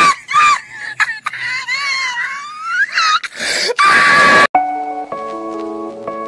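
A high-pitched voice gives loud, wavering cries that glide up and down. About four and a half seconds in it cuts off suddenly and gentle plucked-guitar music begins.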